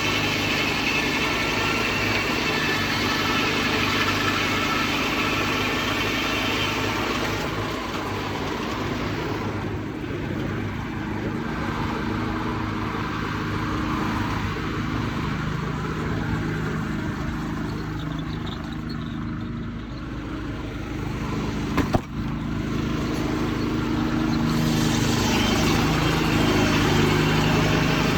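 Sawmill's Detroit Diesel 6-71 two-stroke inline-six engine running steadily, muffled from inside an overall pocket, with one sharp knock about two-thirds of the way through.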